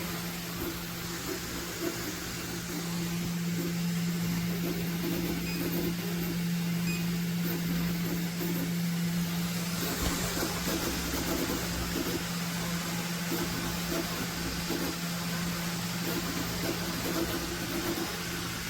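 3D printer running, with a steady hum and fan noise and a wavering motor whine over it.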